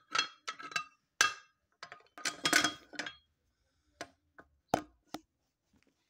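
Knipex pliers wrench clinking as it is handled and its steel jaws are set on a steel wheel rim: a run of sharp metal-on-metal clicks and taps with a short ring, thickest and loudest about two and a half seconds in, then four sparser clicks after the four-second mark.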